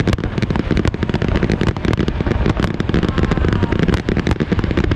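Fireworks display going off in a rapid, dense string of bangs and crackles, many shots a second with no let-up.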